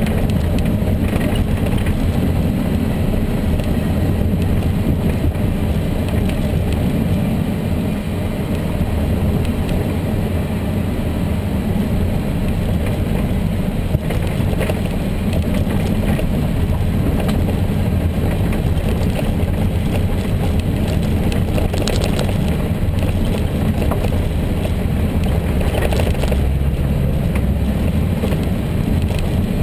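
Volkswagen Tiguan engine running steadily, with the noise that the owner puts down to a worn engine mount. A single brief knock sounds about halfway through.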